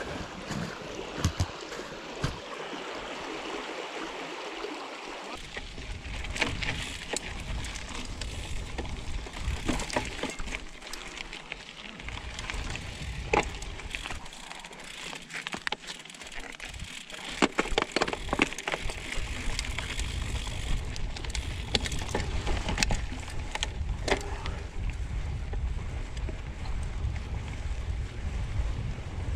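Mountain bike ridden over a bumpy grass trail, with scattered rattles and knocks from the bike over bumps. Wind rumbles on the microphone from about five seconds in, heaviest near the end. A stream runs close by at the start.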